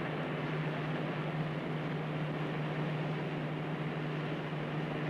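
Aircraft engine drone heard from the cockpit: a steady, unchanging low hum with a hiss over it.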